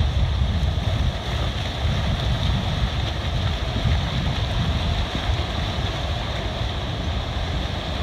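Ocean surf washing up the beach in a steady rush, with wind buffeting the microphone.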